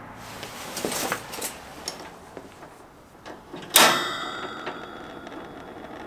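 Light knocks and handling noises on a Mr. Heater Big Buddy propane space heater as it is being started. About four seconds in comes one sharp metallic clank that rings on briefly.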